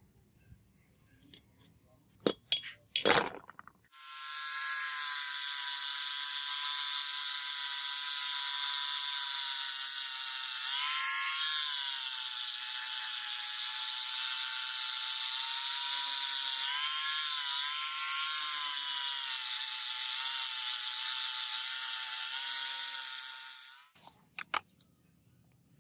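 A few handling knocks, then a small electric power tool running steadily for about twenty seconds with a hiss over its motor whine. Its pitch sags briefly twice as it takes load, and it winds down near the end.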